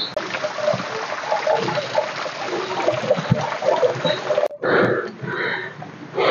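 Small hillside stream trickling and splashing steadily down a gully. It cuts off abruptly about four and a half seconds in, and a few short sounds follow.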